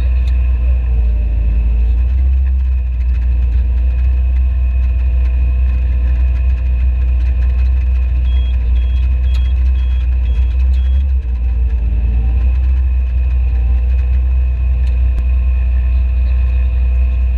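John Deere tractor engine running steadily while pulling a CLAAS round baler, a deep drone with a steady whine over it and two slight dips in pitch. About halfway through, a run of six quick electronic beeps.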